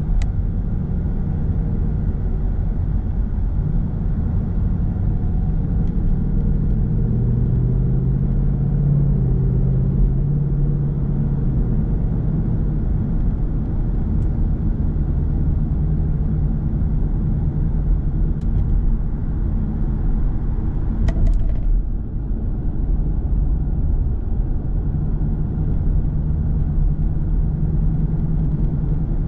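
Road and engine noise heard from inside a car cruising on a freeway: a steady low rumble with a hum, and a brief sharp double click about two-thirds of the way through.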